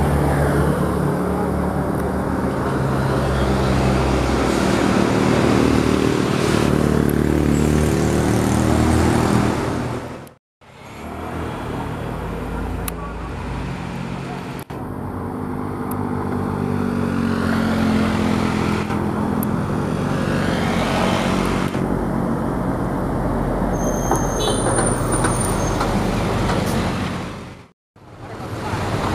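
Road traffic passing: car, truck and motorcycle engines rising and falling as vehicles go by on a hill road. The sound breaks off into a moment of silence twice.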